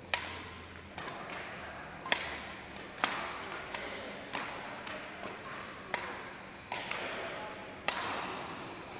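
Badminton rackets striking a shuttlecock in a rally: sharp smacks about once a second, some louder than others, each ringing on in a large echoing hall.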